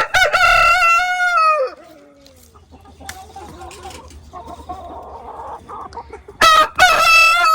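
Rooster crowing twice: one long crow at the start that trails off downward, then a second crow near the end, with quieter hen sounds between.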